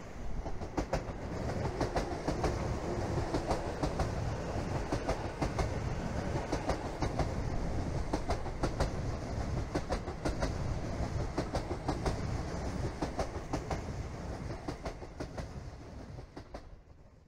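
Sotetsu 12000 series electric train running on the track: a steady low rumble with frequent sharp, irregular clicks of the wheels over rail joints. It fades out near the end.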